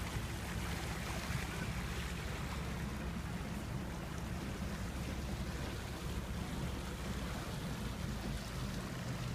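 A boat's engine running steadily with a low hum, with water rushing along the hull.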